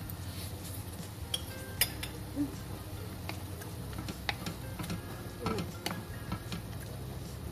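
A cooking utensil clinking and scraping against a pan of shredded duck being stirred, in scattered sharp, irregular clicks over a low steady hum.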